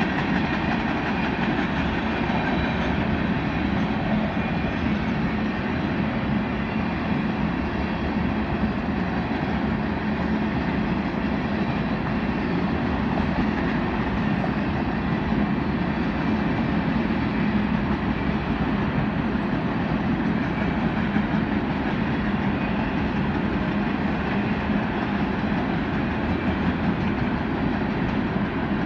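Freight train of tank cars rolling past, a steady rumble of steel wheels on rail with some clickety-clack from the rail joints.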